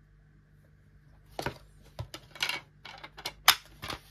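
Plastic DVD case and disc being handled: a run of sharp plastic clicks and clacks, starting about a second and a half in, as the disc is put back on the case's hub and the case is closed. The loudest snap comes about three and a half seconds in.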